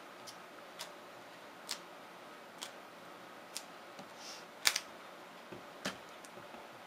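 Light knocks of cut bars of cold-process soap being set down one at a time, about one a second, the loudest just before the middle.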